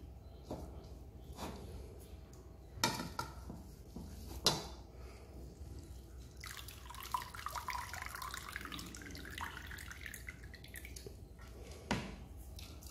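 Thick first coconut milk dripping and trickling into a glass bowl as grated coconut is squeezed by hand. A few sharp splashes, the loudest about three and four and a half seconds in, then a longer spell of trickling in the middle.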